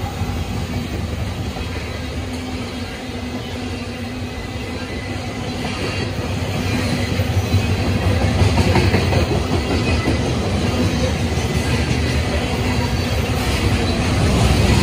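Freight train of coal hopper cars rolling past: a steady rumble and clatter of steel wheels on the rails, growing louder about halfway through.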